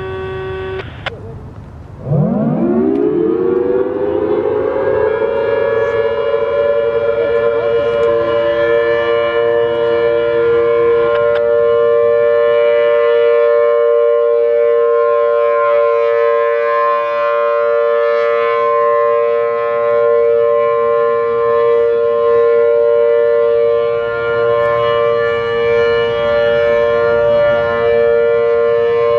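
Federal Signal Thunderbolt 1000AT outdoor warning siren (4/5-port rotor) starting up about two seconds in. Its pitch rises over a few seconds, then it holds a steady two-note chord on the alert signal, wavering slightly in loudness as it rotates.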